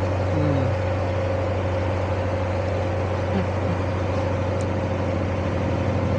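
Narrowboat's engine running steadily while under way, a low even drone with a thin steady whine above it.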